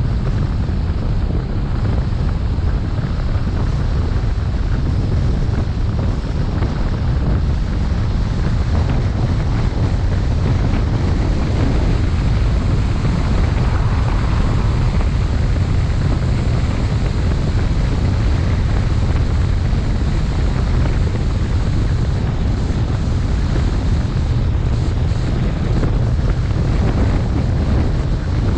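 Wind buffeting the microphone of a moving car, a steady low rumble with road noise beneath it.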